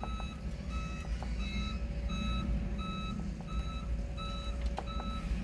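Electronic warning beeper sounding short, even beeps about two or three times a second, over a steady low hum.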